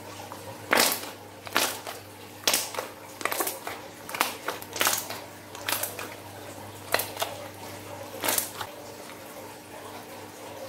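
Glossy slime being stretched, folded and squeezed by hand, giving an irregular string of about ten sharp, wet pops and clicks.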